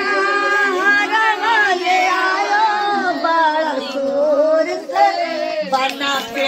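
A group of women singing a traditional wedding folk song (geet) together, sung melody running on without a break.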